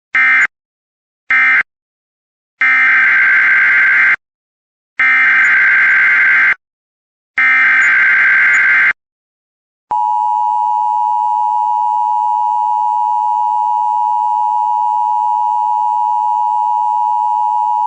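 Emergency Alert System tones: two short screeching SAME data bursts closing the previous message, then three longer SAME header bursts announcing a tornado watch, then about ten seconds in the steady two-tone EAS attention signal (853 and 960 Hz) held for about eight seconds.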